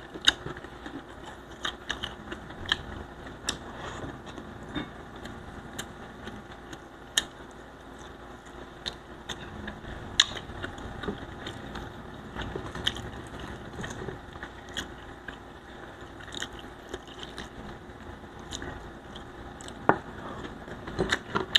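Close-up eating sounds: chewing and mouth smacks while fingers pick at crispy fried tilapia and rice. These come through as many small sharp clicks and crackles, spaced irregularly.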